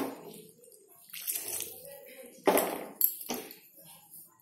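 Water poured into curry in a hot pan, coming in a few splashes, the loudest about two and a half seconds in, as more water is added for the potatoes to simmer.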